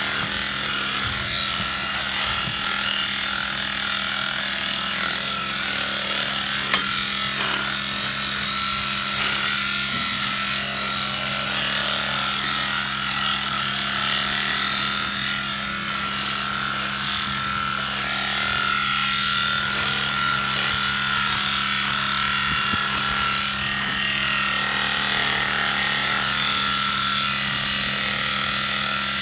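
ErgoPro battery-powered sheep and cattle clipper running with a steady electric hum as it clips the dirty, matted hair of a dairy cow's tail. There is one sharp click about seven seconds in.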